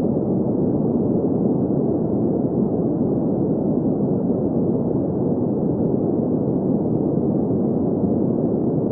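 Synthetic green noise: a steady, unchanging hiss centred in the low mids, with the highs cut off.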